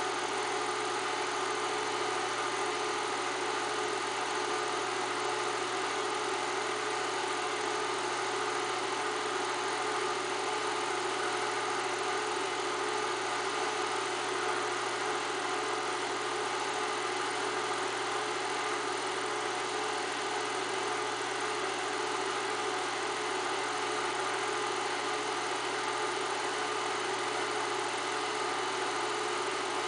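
8mm film projector running, a steady mechanical whir.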